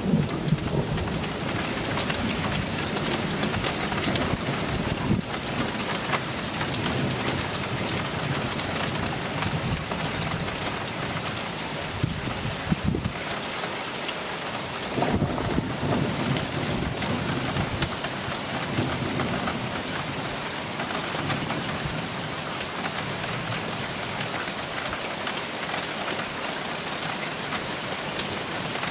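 Steady rain falling through a thunderstorm, with low rumbles of thunder coming and going. The strongest rumble comes about halfway through.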